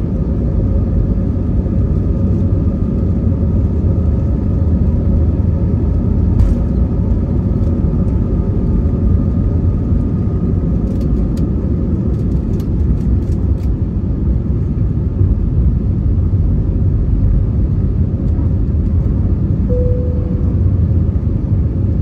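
Steady deep cabin rumble of an Airbus A320neo with Pratt & Whitney PW1100G geared turbofans, heard from inside the passenger cabin. There is a single click about a third of the way in and a short run of light clicks near the middle.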